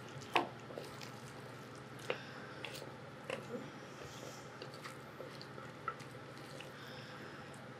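Wooden spatula scraping a ceramic mixing bowl as a thick, creamy casserole mixture drops into a glass baking dish: scattered soft wet squelches and light taps, the sharpest knock about half a second in.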